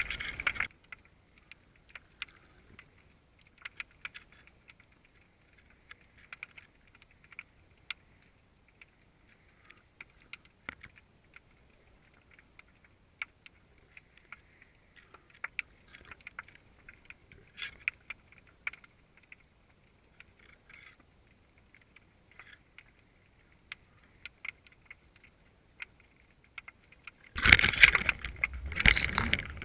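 Faint, irregular clicking and crackling heard through an underwater camera. Near the end it gives way to a loud rushing noise, as from water or handling.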